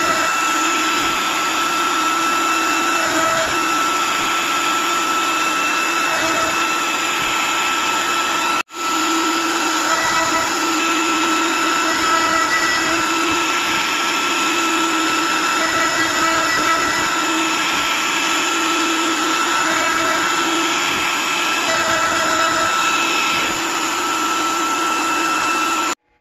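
Onefinity CNC router's spindle running with a steady high whine while its bit cuts into ash, with shorter pitched tones coming and going as the machine moves. The sound drops out for a moment about nine seconds in and cuts off abruptly near the end.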